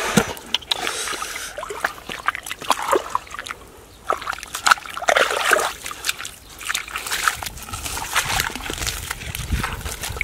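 Water and wet mud splashing and sloshing under bare hands, with irregular squelches and slaps.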